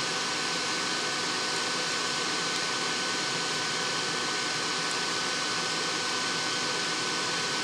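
Steady fan-like hiss with a faint constant high tone running underneath; nothing else stands out.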